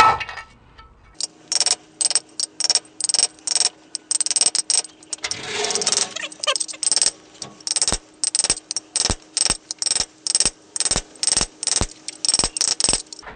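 Light hammer taps driving a ball bearing into its seat in a quad gearbox housing: a long run of short, sharp metallic knocks about twice a second, with a faint ring under them, interrupted briefly by a scraping shuffle a little before the middle.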